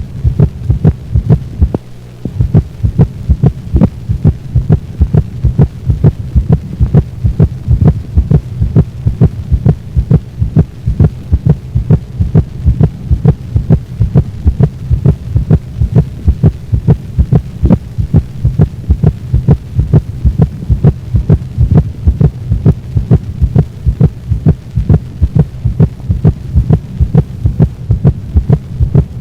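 Recorded dog heart sounds heard through a stethoscope: a fast, even run of beats over a steady low hum.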